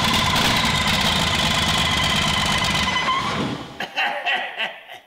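5.9 Cummins 12-valve diesel running on its first start, with the steady whine of its vacuum pump over it. About three and a half seconds in the engine is shut off and winds down to a stop, leaving a few short sounds near the end.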